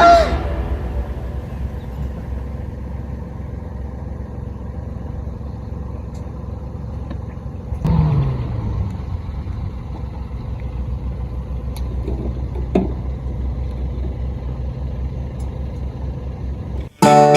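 Motor vehicle engine running steadily with a low rumble. About eight seconds in, a louder swell whose pitch falls.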